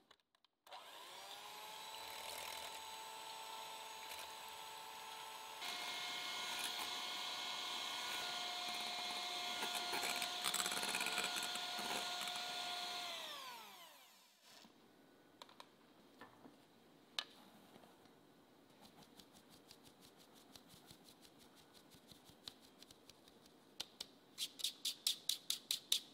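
Philips electric hand mixer whipping egg whites toward stiff peaks. The motor spins up, steps up to a higher speed about five seconds in, runs steadily, then is switched off and winds down with falling pitch. Afterwards come light clicks and, near the end, a fast run of taps from a mesh sieve as flour is sifted.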